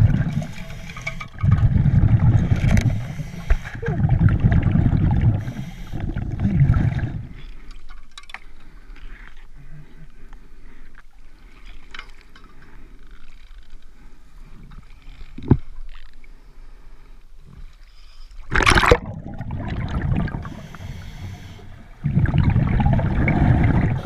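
Scuba diver breathing underwater: rumbling bursts of exhaled bubbles from the regulator, each lasting a second or two, several in the first seven seconds and again near the end. In between it is quieter, with faint clicks and one short, loud rush of noise.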